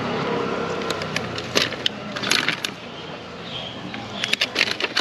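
Clear plastic clamshell food containers clicking and crinkling as they are handled and shifted inside a plastic basket, in a scatter of sharp clicks that grows busier near the end. A low hum fades out in the first half second.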